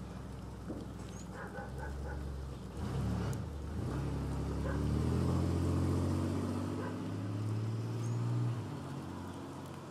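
A motor vehicle's engine running, growing louder about halfway through with its pitch shifting, then dropping away near the end, like a car going by on the street.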